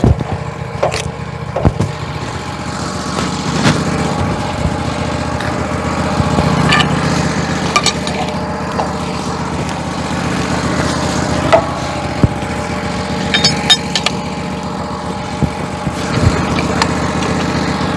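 Wood-Mizer LT15 Go sawmill's small engine running steadily, with scattered sharp knocks and clanks from the log being handled between cuts.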